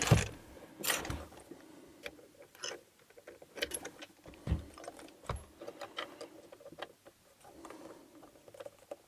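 Small metal tools clicking, scraping and tapping against a padlock while prying at its C-clip. The clicks are irregular, with a few louder knocks near the start and about halfway through.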